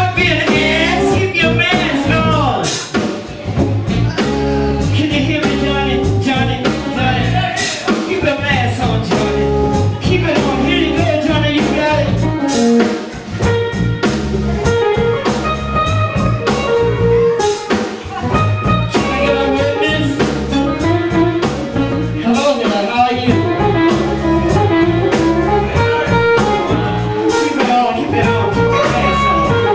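Live blues band: a woman sings over electric bass, drum kit and guitar.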